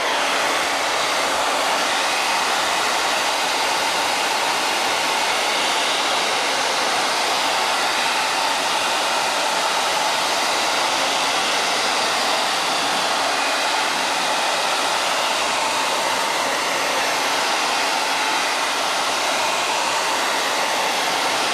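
Handheld hair dryer running steadily on its high setting: a constant rush of blown air with a faint motor hum underneath.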